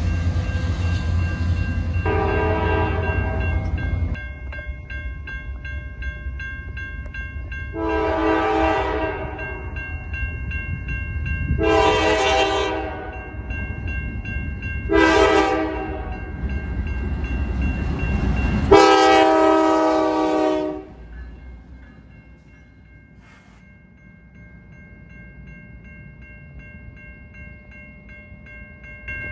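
Diesel locomotive air horn blowing five chord blasts in a grade-crossing sequence, the last one the loudest, over the rumble of passing freight cars that dies away near the end. A crossing bell rings steadily underneath.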